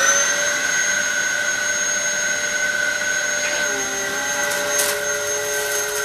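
Dyson DC07 Origin upright vacuum cleaner, just switched on, finishing its spin-up into a loud, steady high whine. The lower tones shift slightly about four seconds in, and a few faint clicks come near the end.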